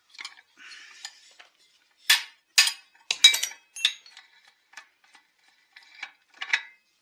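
Small metal tools and parts clinking and clattering as they are handled and set down: a string of sharp metallic clinks, several ringing briefly, the loudest in the middle.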